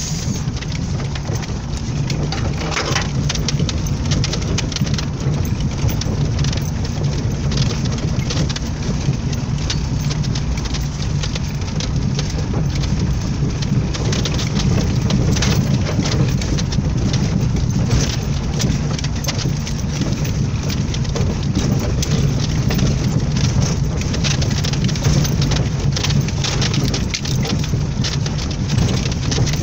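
Lada Niva driving off-road, heard from inside the cabin: a steady low engine drone under constant crackling and ticking from the tyres rolling over dry leaves and twigs on a dirt track.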